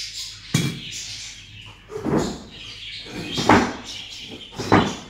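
Kitchen things being handled off-camera: four knocks and clatters about a second and a half apart.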